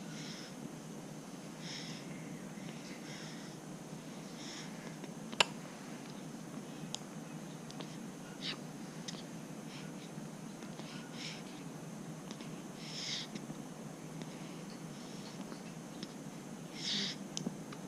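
A baby's breathing and small noises, soft short puffs every second or two, over a steady low hum; one sharp click about five seconds in.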